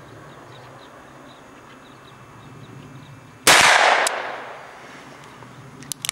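A single .357 Magnum shot from a Smith & Wesson 686 revolver about three and a half seconds in: a sharp crack whose echo dies away over about a second. A few light clicks follow near the end.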